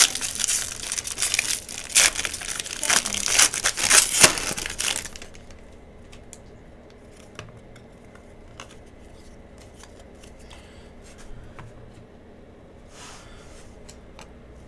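Silver foil trading-card pack wrapper being torn open and crinkled for about five seconds. After that it goes quiet, with a few faint ticks as the cards are handled.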